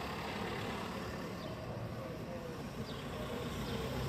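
Cars driving slowly past at close range on a street, a steady low engine rumble that grows a little louder near the end as another car approaches.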